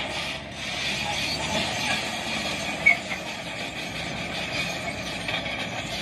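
Shantui SD22 crawler bulldozer's diesel engine running steadily as it pushes soil with its blade. A single short, sharp high-pitched sound about halfway through is the loudest moment.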